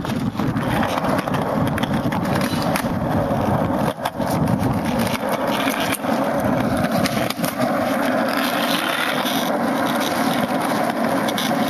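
Skateboard wheels rolling over rough concrete, a steady gritty rumble, with a brief lull about four seconds in and a few short knocks of the board.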